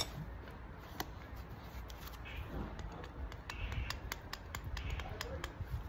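Faint scattered clicks and rubbing from a steering rack end's (inner tie rod's) ball joint being swiveled and handled in gloved hands, over a low steady rumble.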